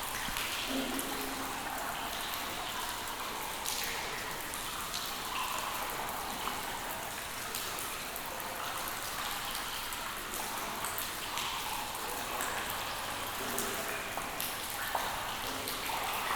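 Steady rain, with many individual drops tapping close by, some giving short pitched plinks.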